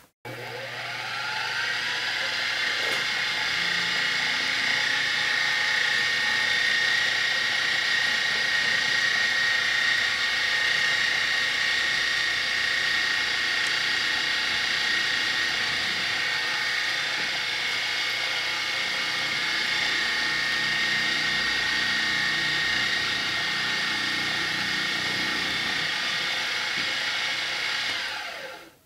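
Milling machine spindle spinning up, then running with a steady whine while a twist drill bores bolt holes into an aluminium block. It winds down near the end.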